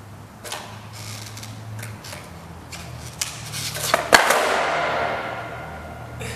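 Skateboard on concrete: a few clicks and knocks of the board, then a loud clack about four seconds in as the board and rider land a trick, the clatter echoing off the bare concrete of a parking garage and dying away.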